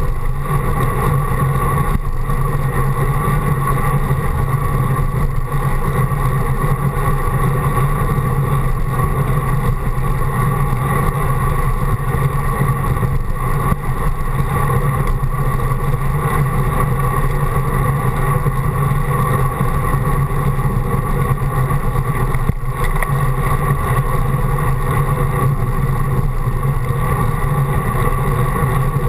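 Steady wind rush and road rumble picked up by a handlebar-mounted action camera on a road bike riding along a paved path, with an even low hum underneath.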